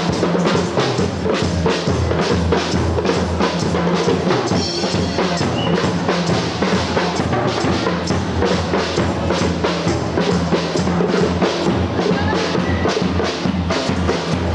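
Live banda music, with drum kit, bass drum and snare keeping a steady beat.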